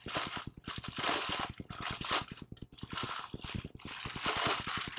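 Clear plastic shipping bag crinkling and rustling in irregular bursts as a rifle is unwrapped and pulled out of it.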